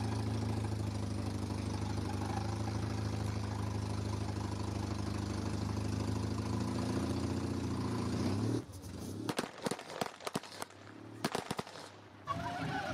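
A steady low mechanical hum from the Lada-based transformer robot, like an engine running, which cuts off abruptly most of the way through. A scattered run of sharp clicks and pops follows.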